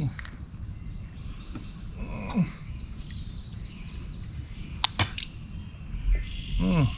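Low rumbling handling noise with two sharp clicks about five seconds in, and a short vocal grunt with falling pitch near the end, over a steady high drone of insects.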